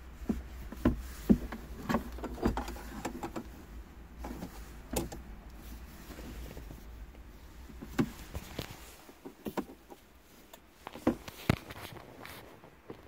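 Irregular clicks and knocks of loose plastic interior trim being handled in a car cabin, over a low hum that fades about nine seconds in.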